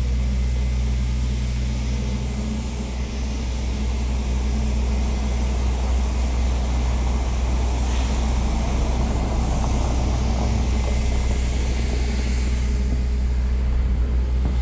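Steady low rumble of wind on the microphone, with faint street background and no distinct events.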